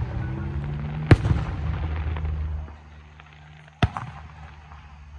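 Aerial fireworks shells bursting: a sharp bang about a second in, followed by a low rumbling echo that dies down, then a second single bang late on.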